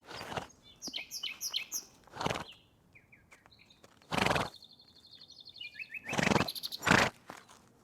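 Birds chirping, with short high calls and a fast trill partway through, broken by several louder short rushing bursts, the strongest about four seconds in and again near six and seven seconds.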